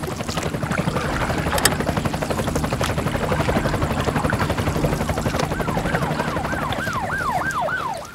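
A steady, fast low pulsing like a running engine under a dense wash of noise. About five and a half seconds in comes a run of quick falling whistle-like sweeps, several in a row.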